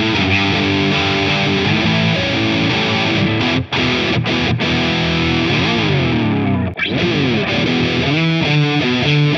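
Gusta GST-05 electric guitar played through an overdriven, distorted amp tone: a single-note lead line with bends and slides. It is first on the middle single-coil pickup, then on the middle pickup together with the bridge humbucker after a brief break near seven seconds in.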